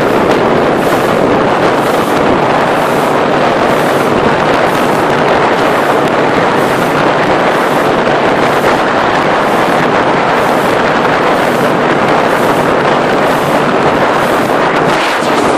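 Small open motorboat under way: its running motor and water noise under a steady, loud rush of wind on the microphone.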